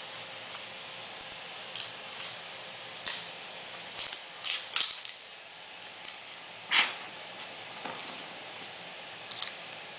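Yorkshire terrier playing with a small stuffed toy on a tile floor: a handful of short, scattered scuffs and taps of paws and toy against the tiles, the loudest about seven seconds in, over a steady hiss.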